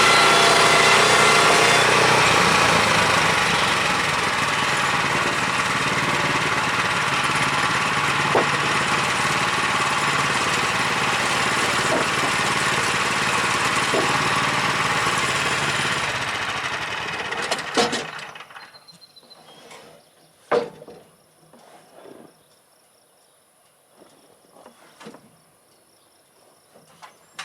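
Woodland Mills HM126 portable sawmill's gas engine running steadily, then shut off about two thirds of the way through. A few scattered knocks follow in the quiet.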